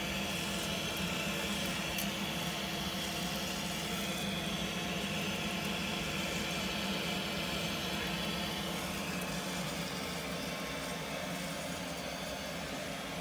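Steady mechanical hum and whir of a gas combi boiler's heating system running while it is flushed, with a hiss that softens about two-thirds of the way through.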